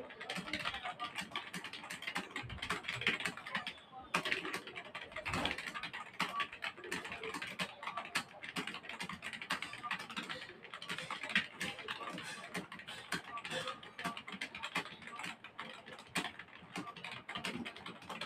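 Fast typing on a computer keyboard: a rapid, unbroken stream of keystroke clicks at typing-test speed, with a brief pause about four seconds in.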